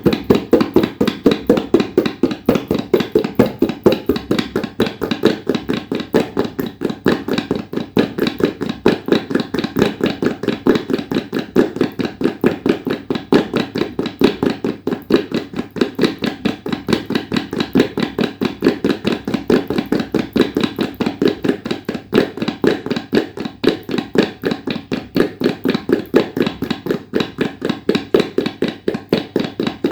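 Tabla played in a fast, steady stream of strokes that imitates the hoofbeats of a running horse.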